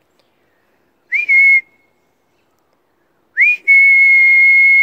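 Whistling to call a dog: a short whistle, then a longer one held about a second and a half, each sliding up at the start and then holding one steady pitch.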